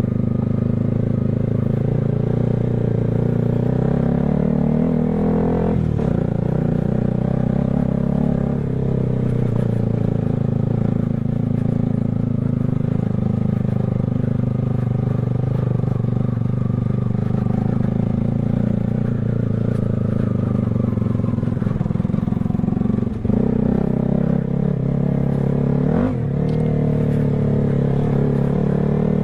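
Motorcycle engine running steadily on the move, with its pitch shifting briefly a few times.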